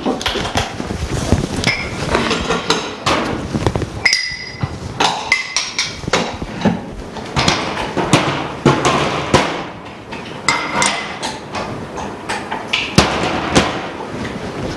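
Metal moulds and tools on a phone-screen repair machine clinking and knocking as the top and bottom moulds are swapped, with many sharp, irregular knocks and a few short metallic rings.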